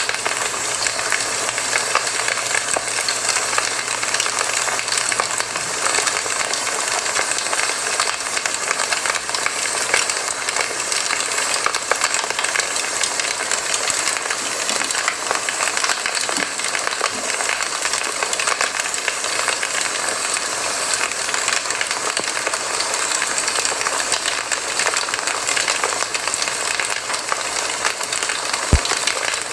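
Campfire burning, with steady dense crackling and hissing and one louder pop near the end.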